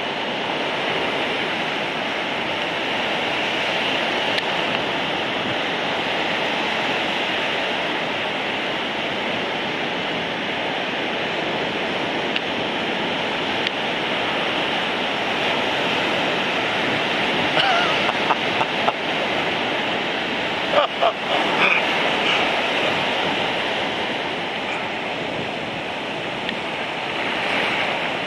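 Heavy North Sea surf breaking continuously: a dense, steady rush of water noise. Around 18 and again 21 seconds in, a few short, louder pitched sounds stand out above it.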